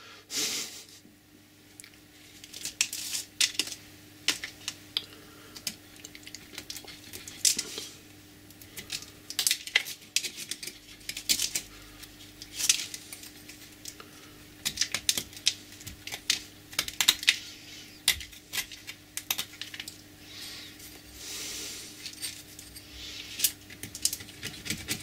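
Penknife blade scraping and picking hardened, oil-soaked felt out of a metal lathe bed wiper holder: irregular scratches and small sharp clicks of blade on metal.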